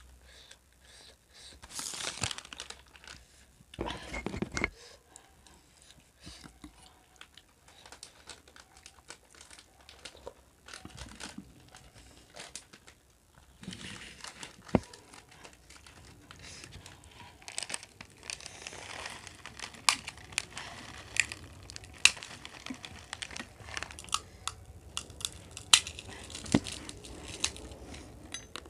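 Crisp fried finger snacks crackling as they are crushed by hand into steel bowls, with sharp clicks of spoons against the bowls scattered through.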